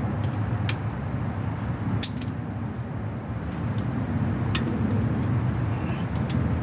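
Sharp metallic clinks of tools against metal parts as a vehicle's driveshaft is being unbolted, a few scattered strikes with the loudest about two seconds in, over a steady low hum.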